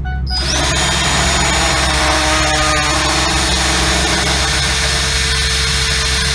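Handheld Dremel rotary tool starting up about half a second in, its whine rising and then holding high, then running steadily as it grinds away the plastic of a truck's dash opening to fit a double-DIN stereo.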